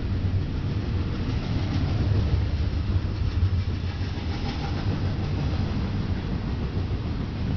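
Double-stack intermodal well cars of a freight train rolling past, a steady low rumble of steel wheels on rail.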